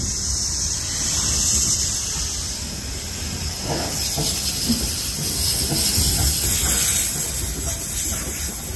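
Streamlined steam locomotive 3801, an NSWGR C38-class 4-6-2 Pacific, moving slowly along the line with a loud, steady hiss of escaping steam over a low rumble of the engine and wheels, and a few knocks about four seconds in.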